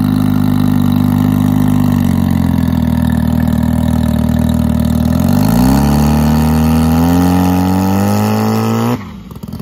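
Rotary engine of a Suzuki Sidekick running under load as it pulls away towing a jet boat on its trailer: the pitch sags slightly about two seconds in, then climbs steadily from about halfway as the revs rise. The sound drops away abruptly near the end.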